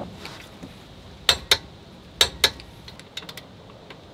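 Click-type torque wrench going off twice as it reaches its set torque on the rear brake caliper bolts: two sharp double clicks about a second apart, followed by a few lighter ticks.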